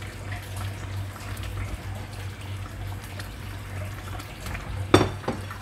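Eggplant pieces going into a pot of coconut-milk green curry, with liquid splashing and trickling over a steady low hum. There is one sharp knock about five seconds in.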